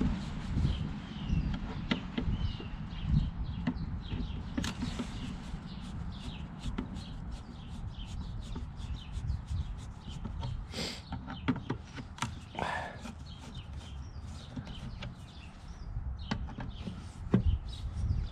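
Hand screwdriver turning the Phillips screws of a Jeep tail light: scattered small clicks and scrapes of the tip in the screw heads over a steady low rumble on the microphone, with a couple of louder scrapes or a squeak about two-thirds of the way through.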